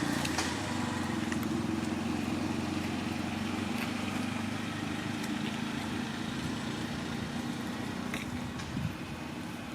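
A motor vehicle's engine running with a steady low drone that dies away near the end.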